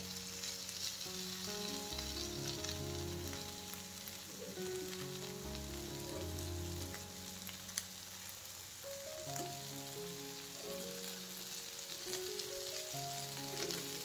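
Chicken-and-egg kebab patties sizzling as they fry in oil in a nonstick pan, with a fork knocking and scraping on the pan as they are turned, and one sharp tap about eight seconds in. Soft background music plays under the sizzle.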